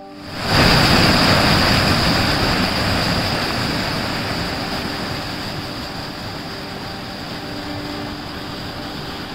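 Water rushing and splashing out of a storm water detention vault's flap-gated discharge outlet into the ditch. It starts suddenly about half a second in, then slowly eases to a steady roar.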